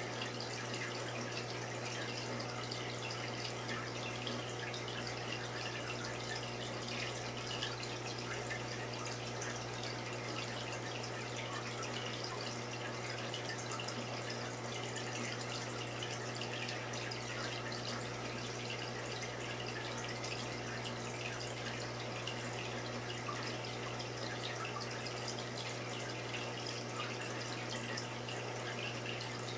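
Reef aquarium water circulation: steady trickling and dripping water with a constant low hum underneath.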